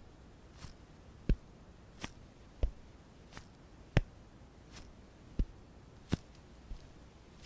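Makeup tool, such as a brush or sponge, dabbing close to the microphone in a steady rhythm of about one tap every 0.7 s. Deeper thuds alternate with lighter, brushier swishes.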